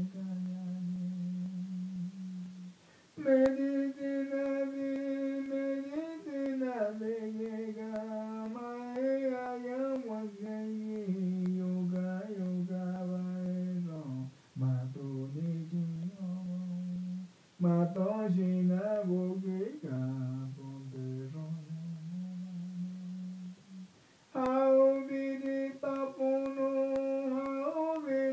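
A single voice humming a slow, wordless icaro, an ayahuasca healing song, in long held notes that slide between pitches. The phrases break off briefly for breath several times.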